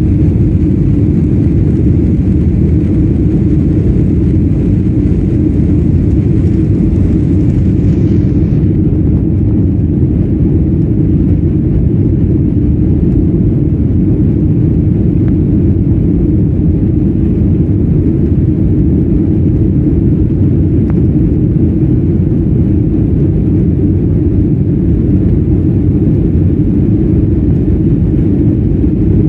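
Cabin noise of a Boeing 737 MAX 9 taxiing: a steady, loud low rumble from its CFM LEAP-1B engines at taxi power and the aircraft rolling. A thin high hiss above it stops about eight seconds in.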